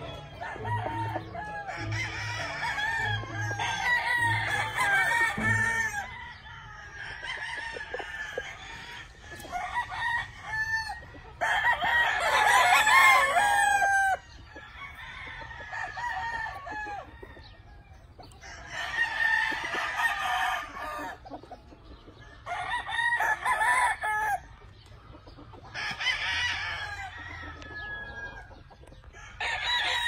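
Several gamecock roosters crowing one after another, each crow lasting a second or two, with the loudest about halfway through, and clucking between the crows. A regular low thumping beat sounds under them for the first five seconds or so, then stops.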